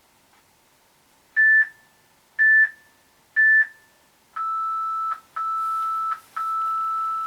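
Workout interval timer beeping the end of the timed set: three short high beeps about a second apart, then three longer, lower tones, the last held longest.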